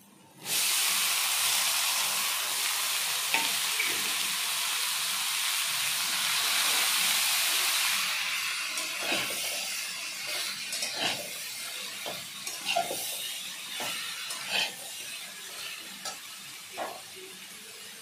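Chopped wax gourd dropping into hot oil in a steel kadai, setting off a sudden loud sizzle about half a second in. The sizzle holds for several seconds, then dies down while a metal spatula stirs and scrapes the pan with scattered clicks and scrapes.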